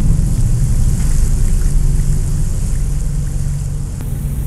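A loud, steady low rumble with a faint hiss above it, slowly fading toward the end.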